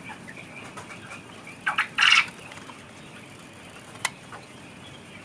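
Caged quail chirping softly throughout, with a louder short burst of sound about two seconds in and a single sharp click near the end.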